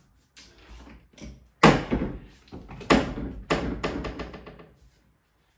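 Clothes hangers and built-in wardrobe doors knocking and clattering as clothes are hung on the wardrobe rail. The loudest knock comes about a second and a half in, with two more over the next two seconds and lighter clacks between.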